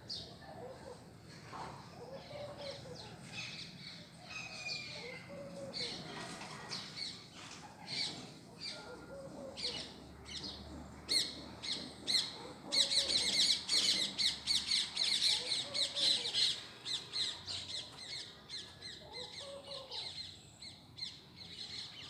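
Birds calling outdoors: scattered chirps and squawks, with a dense stretch of rapid chirping about halfway through, and a lower, repeated short call every couple of seconds.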